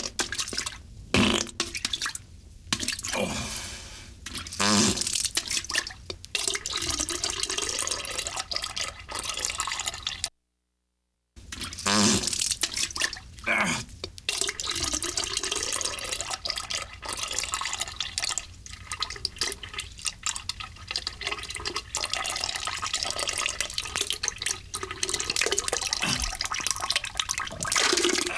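Comic wet fart and diarrhea sound effect: long sputtering, splattering passages with gurgling squelches. It stops for about a second some ten seconds in, then starts again.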